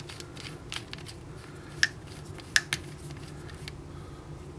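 A few light, sharp clicks of small metal parts as the Azodin Blitz 2011 paintball marker's regulator is screwed back together by hand, over a steady low hum.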